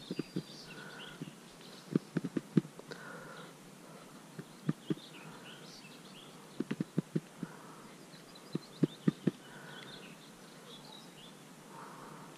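Small birds chirping and singing, with short clusters of sharp clicks and knocks from a horse three or four times.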